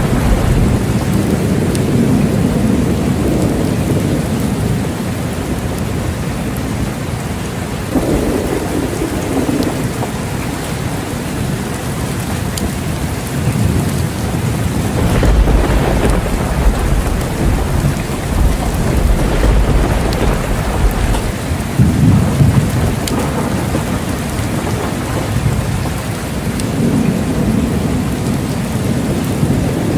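Steady rain falling, with low rolling thunder that swells and fades several times, loudest about halfway through and again toward the end.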